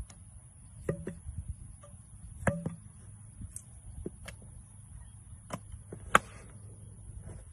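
A baseball bat hits a ball off a batting tee with one sharp crack about six seconds in, the loudest sound here. Several lighter knocks and taps come before it.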